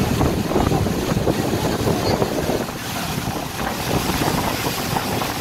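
A Combat Boat 90 under way at speed: wind buffets the microphone hard over the rush of the churning wake and the boat's running noise.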